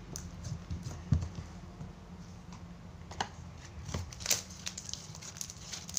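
Basic white glue-and-activator slime being stretched and pressed by hand: scattered small sticky clicks and crackles, with a soft thump about a second in.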